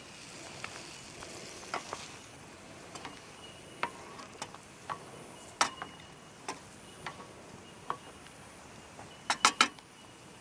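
Hand-carved wooden spoon stirring pasta in a metal camp pot, knocking against the pot in scattered sharp clicks, with a quick run of about four knocks near the end.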